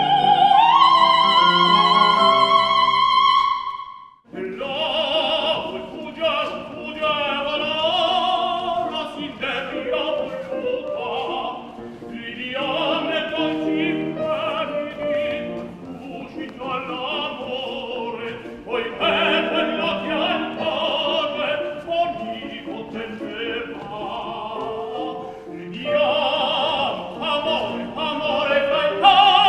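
Operatic singing with strong vibrato over a sustained accompaniment: a long, high held note that breaks off about four seconds in, then further sung phrases.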